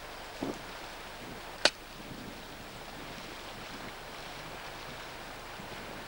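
Kolesov planting sword, a steel-bladed planting bar, driven into soil: a dull thud about half a second in, then a single sharp click, the loudest sound, about a second later, over a steady hiss.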